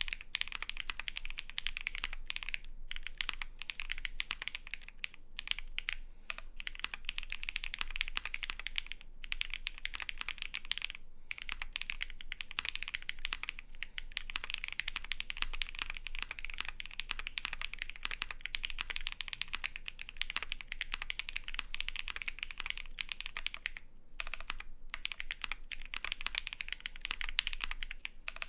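Fast continuous typing on a custom mechanical keyboard with lubed Holy Panda tactile switches on a polycarbonate plate and GMK keycaps: dense key clacks, broken by a few brief pauses.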